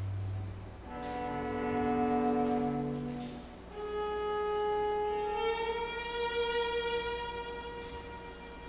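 Chamber quartet of flute, oboe, violin and cello playing contemporary classical music: a low cello note dies away at the start, then long, overlapping held notes, with one line stepping up slightly in pitch about halfway through.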